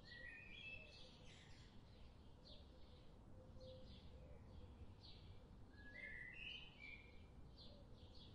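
Faint birds chirping, short high notes about two a second, over quiet background noise.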